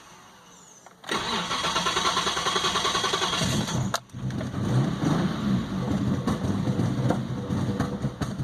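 2001 Isuzu Trooper engine being started: the starter cranks it with an even, repeating rhythm for about three seconds, stops abruptly, then the engine turns over again and keeps going unevenly through the rest. This is an intermittent hard start that the owner can't explain.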